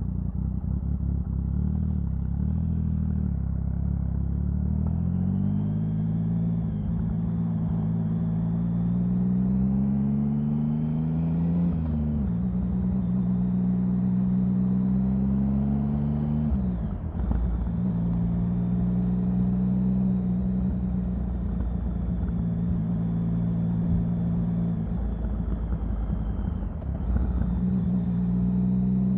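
Triumph Sprint 1050's three-cylinder engine running under way. Its pitch climbs as it accelerates, drops abruptly about 12 seconds in and again near 17 seconds, as at gear changes or easing off the throttle, then holds steady at a cruise.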